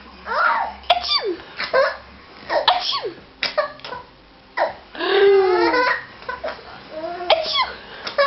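A seven-month-old baby laughing in repeated high, squealing bursts, one of them longer about five seconds in, mixed with a woman's sneezes or sneeze-like outbursts.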